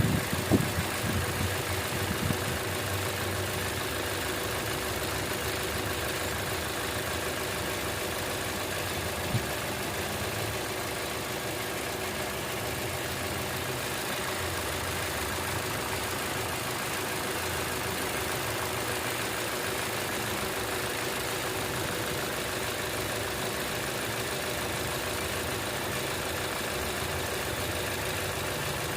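Toyota Innova Zenix engine idling, louder for the first couple of seconds and then settling to an even running sound with a steady tone over it, and a single short tick about nine seconds in. The owner calls the sound strange and does not know whether it is normal.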